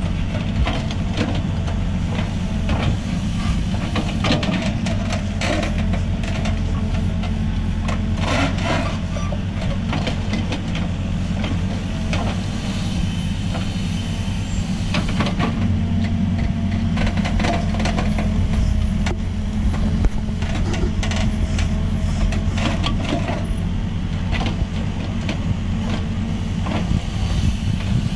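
Hidromek 102B backhoe loader's diesel engine running steadily under digging load while the backhoe cuts a trench, with frequent knocks and scrapes of the bucket in the soil.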